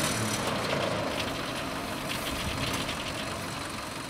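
Diesel engine of a heavy farm machine, a tractor or bogged-down combine harvester in a muddy paddy, running steadily and gradually getting quieter.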